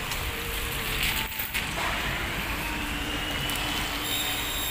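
Traffic noise from a wet road, with a thin whine that rises from about two seconds in and holds as a steady high tone near the end.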